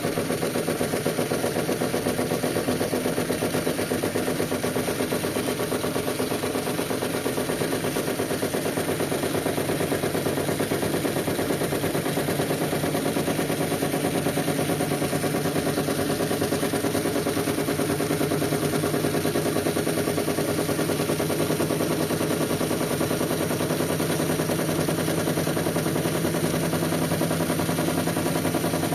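Whirlpool washing machine spinning steadily at speed on its Quick Wash 30 cycle, a constant motor and drum hum with a fast, even pulse.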